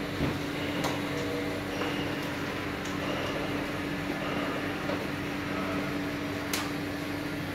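Steady low machine hum of the room, with a faint click about a second in and a sharper click near the end.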